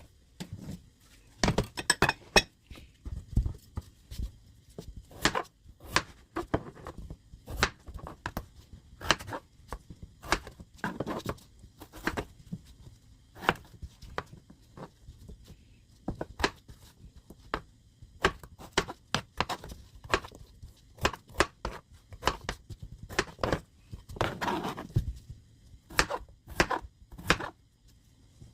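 Kitchen knife cutting vegetables on a chopping board: irregular sharp knocks of the blade against the board, with a few longer scraping sounds in between.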